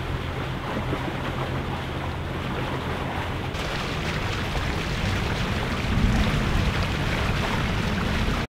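Wind buffeting the microphone and water rushing past the hulls of a catamaran under motor, with the steady low hum of its engine underneath for the first three or four seconds. The sound cuts off suddenly near the end.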